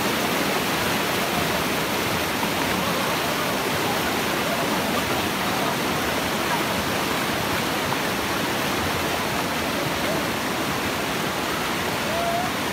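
Heavy current of muddy floodwater rushing through a flash-flood breach in a road, churning around bamboo stakes and sandbags. A steady, even rush of water.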